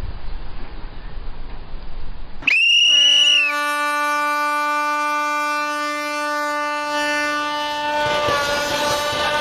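Steady wind-like noise, then about two and a half seconds in a horn sounds suddenly and holds one long, loud, steady note through the rest.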